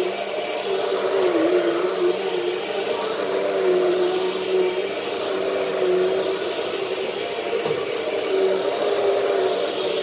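Vacuum cleaner running steadily: a constant motor whine with a thin high tone held above it.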